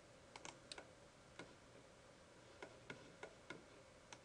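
Faint, irregular clicking of a computer keyboard and mouse, about ten clicks spread unevenly across the stretch, over a faint steady hum.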